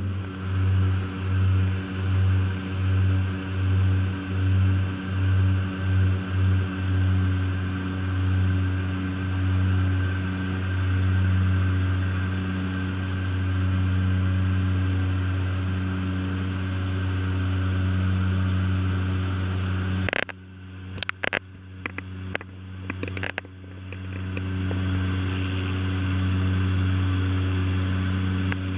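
Twin-propeller turboprop seaplane (de Havilland Canada DHC-6 Twin Otter) in cruise, heard from inside the cabin as a loud steady propeller drone. For the first seven seconds the drone throbs, the beats coming faster as the two propellers drift out of step, then it evens out. About twenty seconds in the drone briefly falls away under a few seconds of sharp clicks and knocks.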